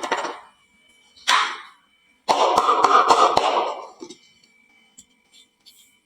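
Marbles rolling and clattering down a wooden marble-run slope and dropping into a toy truck. A short rattle comes about a second in, then a longer, dense clatter of many quick clicks lasting about two seconds, followed by a few light scattered clicks.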